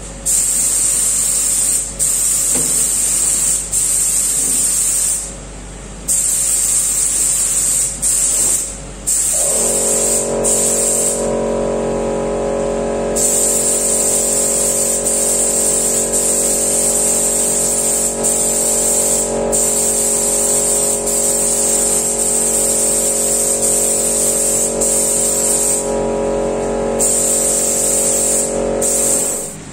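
Compressed-air spray gun with a 2.0 mm nozzle spraying thick protective coating: a loud hiss in long bursts, broken by brief stops as the trigger is released. About nine seconds in, an air compressor's motor starts up and runs steadily beneath the spraying.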